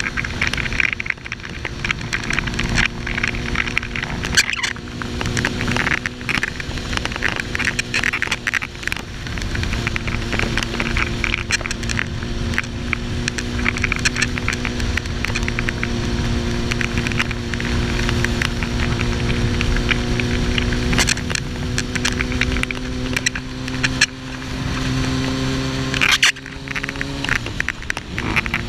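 Suzuki GSX-R1000 inline-four engine running at a steady cruise under way, its pitch creeping up and then dropping suddenly near the end. Heavy wind noise and crackling on the microphone run over the engine, the faulty audio of this recording.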